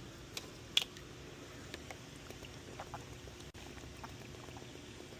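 A few faint clicks and taps, one sharper click a little under a second in, over a steady low hum.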